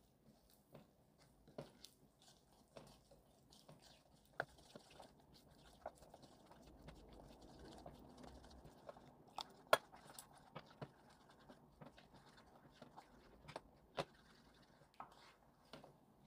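Wooden spoon stirring a thin flour batter in a glass bowl: soft, faint wet mixing, with scattered light clicks of the spoon against the glass, the sharpest about ten seconds in.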